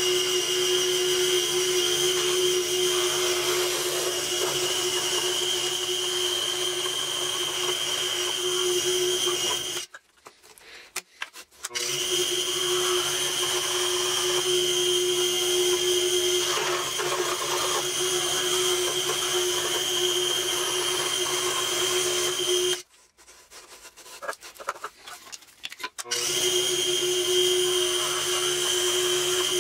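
Scroll saw running steadily with a high whine, its blade cutting through a stack of plywood sheets. The saw stops twice for about two seconds and starts up again.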